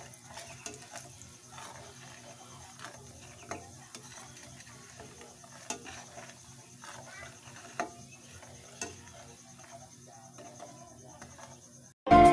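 Metal spoon and fork stirring and whisking a thin flour batter in a stainless steel pan, with irregular light clinks and scrapes against the pan. Music starts suddenly near the end.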